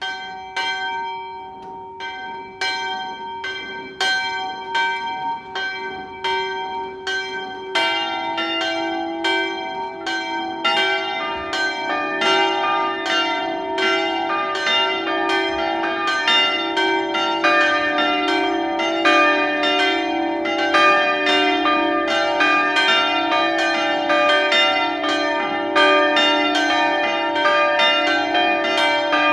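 Grensáskirkja's church bells start ringing: a single bell strikes steadily, a second, lower bell joins about eight seconds in, and the peal grows fuller a few seconds later as the bells ring together.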